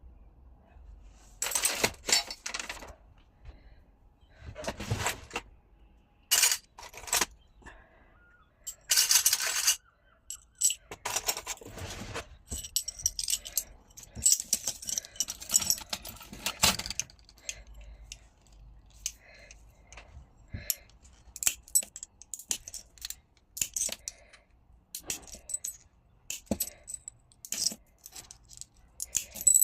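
Small pieces of scrap glass clinking and scraping against each other as they are handled, with many short sharp clinks and a few longer scraping stretches.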